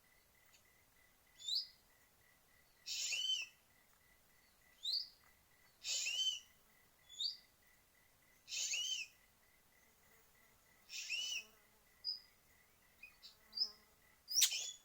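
Ekek keling birds calling: a harsh, rasping call about every two and a half seconds, with short rising whistled notes in between. Near the end there is a sharp click.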